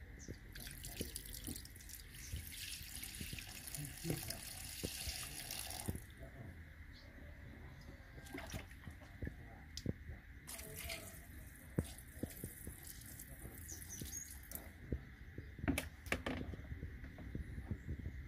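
Water running and splashing in two long spells, the first about five seconds and the second about four, with small knocks and drips between.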